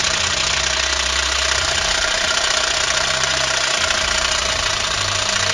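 Battery-powered toy pistol's electronic firing sound effect: a continuous, fast machine-like rattle.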